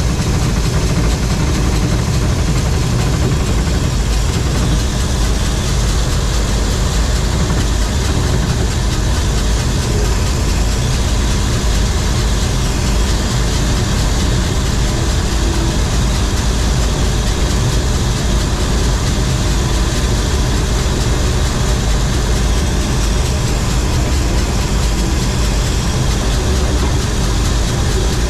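John Deere 4400 combine harvester running steadily under a constant engine note, with no change in speed.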